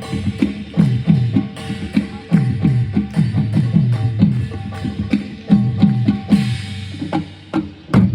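Manipuri pung drums played in a fast rhythm, the deep strokes sliding down in pitch after each hit, with sharp higher slaps between them; the drumming thins out near the end.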